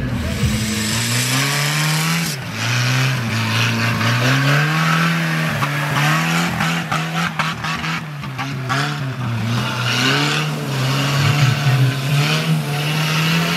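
Engine of a modified off-road 4x4 revving up and down again and again as it works through deep mud, with a flurry of knocks and spatter midway.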